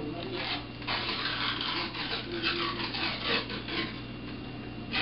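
Paper wrapper being peeled and torn off a refrigerated cinnamon-roll dough tube, a series of scratchy rasps one after another.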